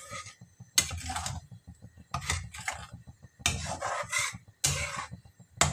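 Steel ladle scraping around a steel kadai while thick rose-petal chutney is stirred, in about five rasping strokes of about half a second each.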